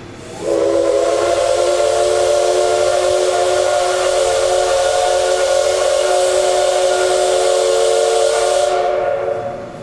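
Steam locomotive C58 363's whistle sounding one long, loud blast of about nine seconds, several notes at once over a hiss of steam: the signal that the train is departing.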